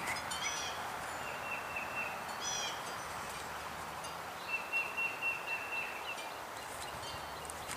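Wild birds singing: short chirping phrases, then just past the middle a longer trill of quick repeated notes on one pitch, over a steady outdoor hiss.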